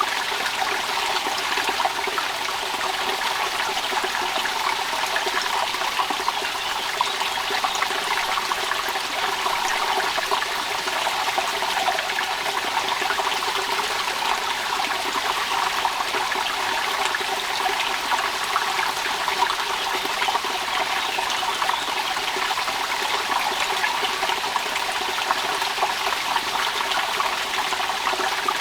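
Steady rain falling, a dense continuous patter that holds level throughout.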